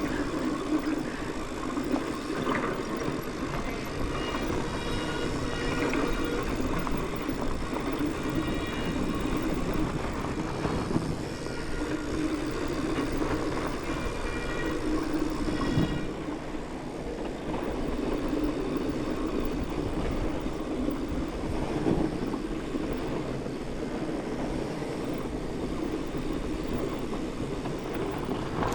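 Mountain bike descending a dirt trail: a steady rolling rumble of tyres over the ground and rattle of the bike, with faint high thin tones coming and going in the first half.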